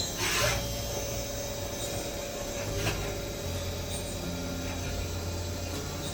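Machine-shop work on aluminium flashlight parts: a steady machine hum with scraping noise, and an even tone that comes in about half a second in.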